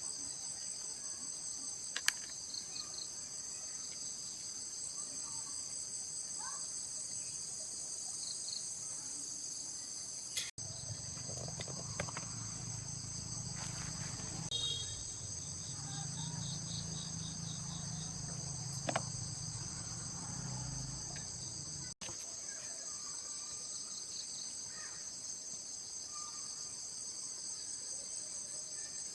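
Steady high-pitched insect chorus, a continuous chirring of crickets or cicadas, with a few faint clicks and, for a stretch in the middle, a low hum underneath.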